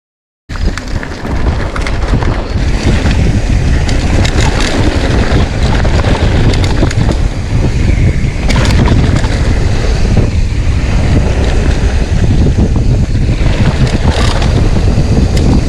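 Wind buffeting an action camera's microphone at speed on a downhill mountain-bike run, with a heavy low rumble and scattered rattling knocks from the bike over rough ground. It starts abruptly about half a second in.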